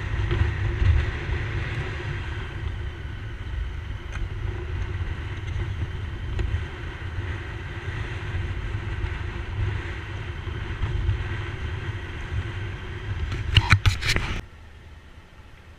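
A motorcycle in motion: steady wind rumble and road noise on a bike-mounted microphone, with the engine under it. Near the end comes a quick burst of sharp knocks, after which the sound drops abruptly to a low hiss.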